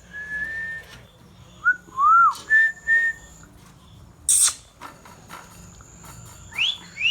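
A ringneck parrot whistling: several clear, short notes, some held level and one rising and falling, then a single harsh squawk about four seconds in. Near the end comes a whistle that rises steeply.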